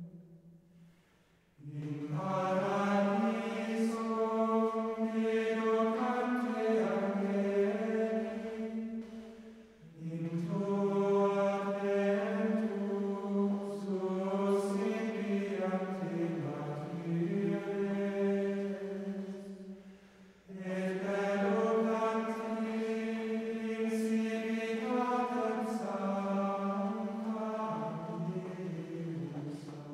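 Slow chanted choral singing in three long sustained phrases, each about eight to ten seconds, with a short pause between them; the last fades out near the end.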